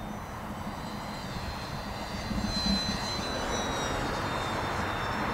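Electric-powered RC F8F Bearcat warbird flying a fast pass, its motor and propeller making a high whine that is loudest about two and a half seconds in and then falls in pitch as it goes by.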